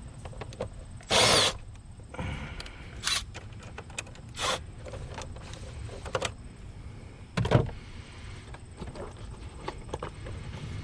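Hand work on a car's shift linkage and surrounding parts: scattered clicks and knocks, with a few short, louder scraping or rattling bursts, loudest about a second in and again midway through.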